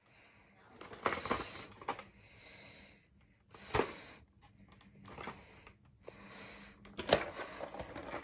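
Handling noise from a cardboard VHS slipcase being held and turned in the hand: soft rustling with sharp taps and clicks, the loudest about a second in, near four seconds and about seven seconds in.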